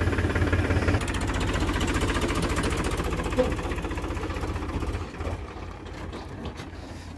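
Powertrac Euro 50 tractor's three-cylinder diesel engine running with a rapid, even chugging. It grows quieter from about five seconds in as the tractor pulls away with its loaded trolley.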